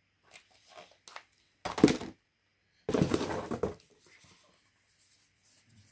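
A few light clicks, then two short bursts of rustling, the second one longer: noise from hands handling objects at close range.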